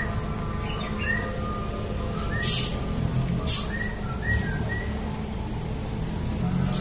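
Hino coach's diesel engine idling with a steady low rumble, with small birds chirping in short calls throughout. Two short hisses come about two and a half and three and a half seconds in.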